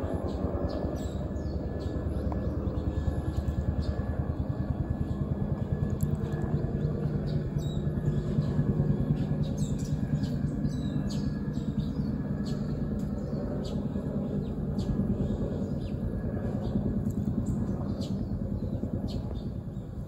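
A steady low rumble with a faint hum, like a motor or vehicle running, under many short high chirps of small birds that come more often after the first few seconds.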